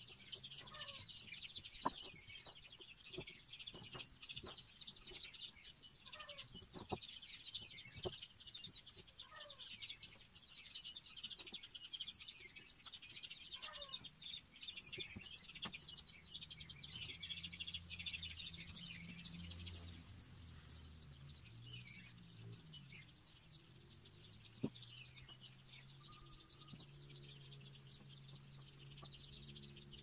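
Faint outdoor ambience: birds chirping and calling, some calls falling in pitch, over a steady high insect drone, with scattered sharp clicks and taps of a knife working a wooden stick. A low hum comes in about halfway through.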